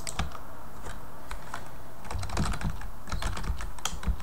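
Typing on a computer keyboard: a few separate keystrokes at first, then a quicker run of keystrokes from about halfway.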